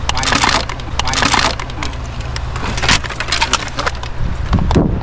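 Litter being gathered and handled: dry crackling and rustling in irregular bursts with sharp snaps, loudest at the start and again near the end, over a steady low rumble.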